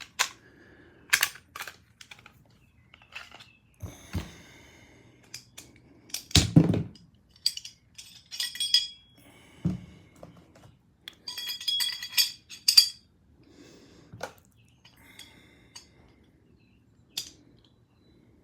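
Metal clicks, knocks and clinks from a Glock 17 pistol and its parts being handled as the barrel is swapped for a threaded barrel with a compensator. A knock about six seconds in is the loudest, and there are two short runs of ringing metal clinks in the middle.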